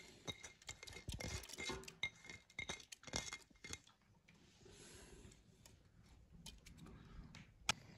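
Faint clinks and taps of kitchen dishes and utensils, thickest in the first four seconds, with one sharp click near the end.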